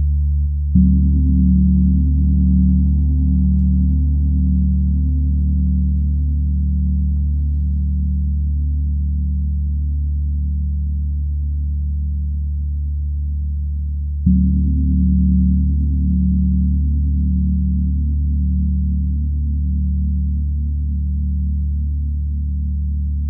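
Large Paiste gong struck twice with a soft mallet, about a second in and again about 14 seconds in. Each stroke swells into a long, deep ring with a slow pulsing beat, and the gong is left ringing between the strokes.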